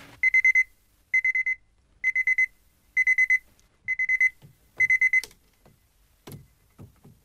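Electronic alarm clock beeping in groups of four quick high beeps, about once a second, six times, then cut off with a click as a hand slaps it off. A few soft knocks follow.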